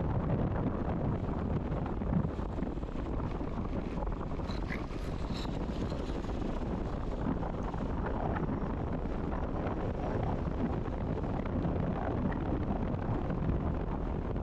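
Steady wind rushing over the microphone of a motorcycle riding at speed, with the bike's running underneath.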